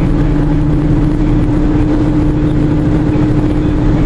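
Car being driven, heard from inside: a steady engine hum over road and wind noise.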